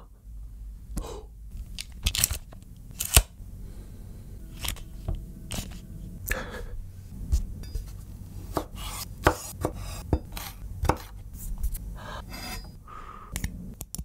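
Knife chopping a pickle on a wooden cutting board: a series of sharp, irregular taps and knocks. Near the end a metal spoon clinks against a small glass bowl.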